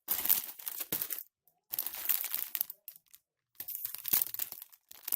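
Parcel packaging crinkling as items are handled, in three bursts of about a second each with short pauses between.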